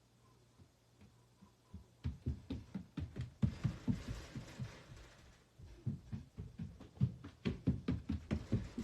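A rapid, irregular run of dull knocks and thumps starting about two seconds in, with a rustling hiss partway through, over a faint steady hum.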